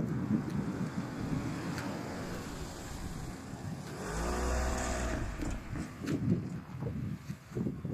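A vehicle drives past close by about halfway through, its engine note bending down as it goes by. Wind buffets the microphone throughout.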